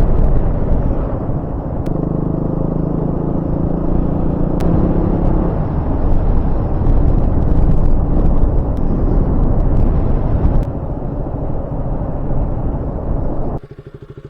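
Motorcycle riding along a road: the engine running, with heavy wind rumble on the microphone. Near the end the rushing noise cuts off suddenly, leaving a quieter, fast, even pulsing.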